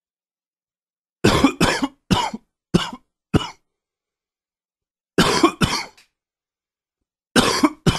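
A man coughing in fits from a cold setting in. There are about five coughs in quick succession, then two more a couple of seconds later, and another run starting near the end.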